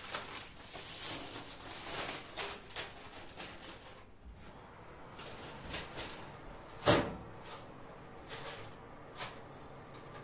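Knocks and clatters as a flatbread is put into a kitchen oven, with one sharp bang about seven seconds in.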